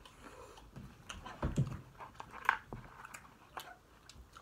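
Eating sounds: irregular crisp crunches and clicks of tortilla chips and quesadilla being bitten and chewed, with a couple of louder crunches in the middle.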